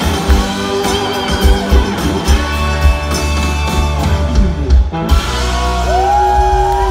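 Live rock band with electric guitars and drums playing loudly, breaking off briefly about five seconds in, then holding a sustained chord under gliding guitar notes as the song ends.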